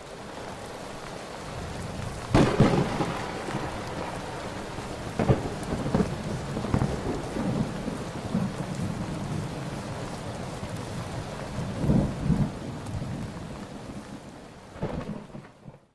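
Steady rain with thunder: a loud thunderclap about two and a half seconds in, and further rumbles around five to seven seconds and again about twelve seconds in. The rain fades in at the start.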